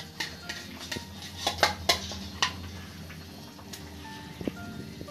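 Metal spatula clinking and scraping against a metal kadai as hilsa fish pieces go into a simmering curry. It is a string of sharp clinks, loudest about one and a half to two seconds in, with a few more further on.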